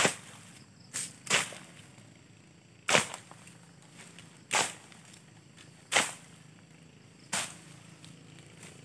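Dry fern and frond stems cracking sharply as they are cut down: about seven sharp cracks, roughly one every second and a half.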